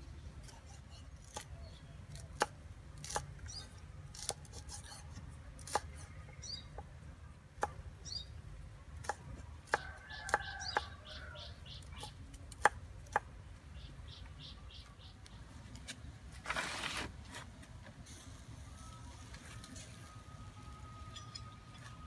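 Knife chopping red chillies and tomato on a thick round wooden chopping block: a dozen or so sharp, irregular chops that stop a little past halfway. Birds chirp faintly, and there is a short rush of noise about two-thirds through.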